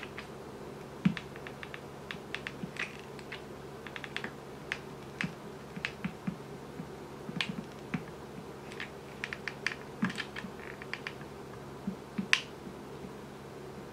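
Glue gun laying a bead of clear glue around a pipe joint: a run of irregular small clicks and ticks, the sharpest about a second in and near the end, over a faint steady hum.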